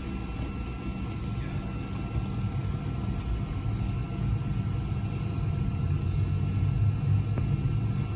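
Cabin noise of a McDonnell Douglas MD-88 taxiing: a steady low rumble from its rear-mounted Pratt & Whitney JT8D turbofans and the rolling airframe, with a faint steady whine above it, growing slightly louder near the end.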